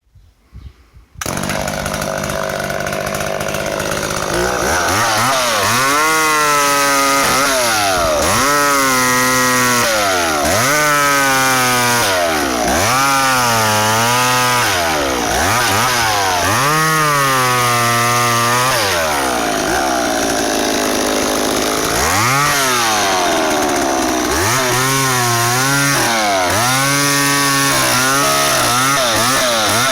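McCulloch Mac 10-10 two-stroke chainsaw cutting wood. The engine starts about a second in, and its pitch then rises and sags over and over, about once every two seconds, as it loads up in the cut and recovers. It settles lower for a couple of seconds about two-thirds of the way through, then starts cutting again.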